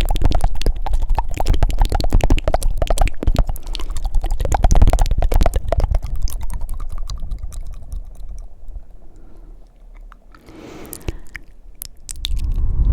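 Fast, wet ASMR mouth sounds close to the microphone: a dense run of rapid tongue clicks and flutters that fades away after about six seconds, then a short breath and a few lone clicks, before louder mouth sounds pick up again near the end.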